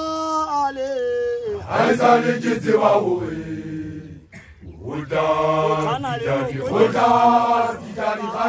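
Basotho initiates' call-and-response chant: a man's voice holds a long call that falls in pitch, then a group of men's voices answers. The group sings again from about five seconds in.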